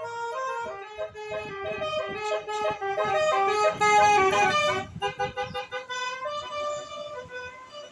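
Vehicle's telolet horn, a multi-note musical air horn, playing a quick tune of short stepped notes, loudest about three to five seconds in. A rumble of vehicle noise rises underneath while the horn is loudest.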